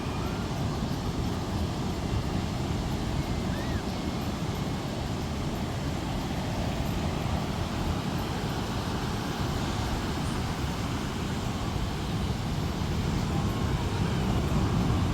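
Wind buffeting the microphone over a steady outdoor rushing noise, getting slightly louder near the end.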